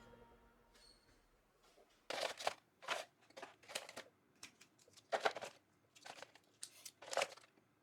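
Plastic items being handled: a series of short rustling, crinkling and clicking sounds, several small bursts a second, starting about two seconds in.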